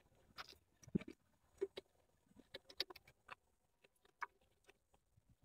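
Faint, irregular clicks and light knocks, about a dozen spread unevenly, the loudest about a second in and near the middle.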